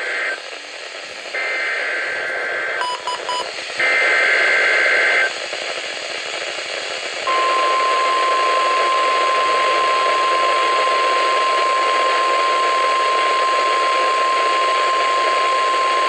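NOAA Weather Radio required weekly test coming through a Midland weather radio's speaker over steady radio hiss. It plays the end of the first SAME digital header burst and two more shrill warbling data bursts, with a few short beeps between them. About seven seconds in, the steady single-pitch 1050 Hz tone-alert signal starts and holds.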